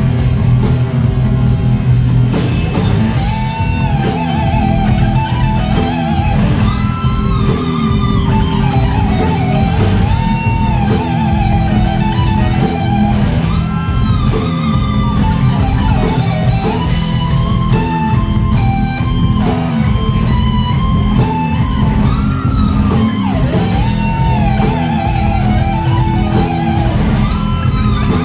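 Rock band playing an instrumental passage: an electric guitar lead with bent, wavering notes over bass and a steady drum beat.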